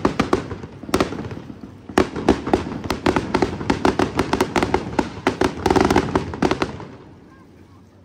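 Aerial fireworks bursting over a lake in rapid volleys of sharp bangs and crackles, which stop abruptly about seven seconds in.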